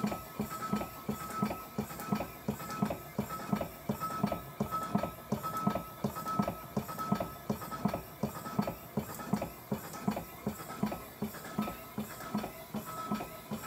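Restored vintage vertical steam engine running on compressed air, beating evenly about three times a second. It runs fairly well, with one or two tight spots still needing adjustment.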